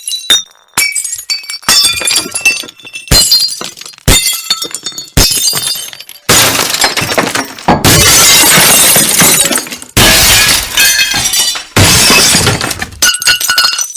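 Glass shattering again and again: about ten separate crashes, each with high tinkling shards ringing after the impact. The crashes in the middle and later part are longer and denser.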